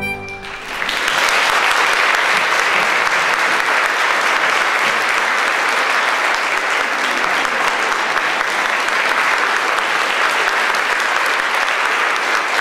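Audience applauding steadily. It swells within the first second as the orchestral music stops.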